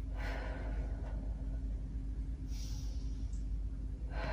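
A woman in labour breathing through a uterine contraction: a long breath out at the start and another breath about two and a half seconds in, over a steady low hum.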